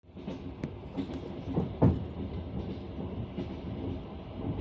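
Passenger train running over jointed track, heard from inside the carriage: a steady rumble with sparse rhythmic clacks of the wheels over the rail joints, the loudest knock just under two seconds in.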